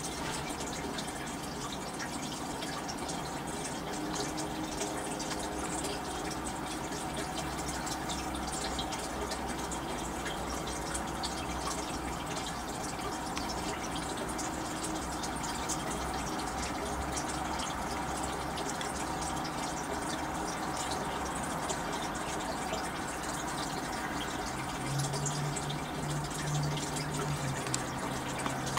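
Running water, a steady even rush that goes on unbroken, with a low hum underneath that gets louder near the end.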